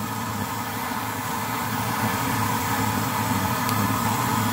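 A 1920s pressurised Primus stove burner running with a steady rush of flame under a frying pan, with steaks sizzling in the pan.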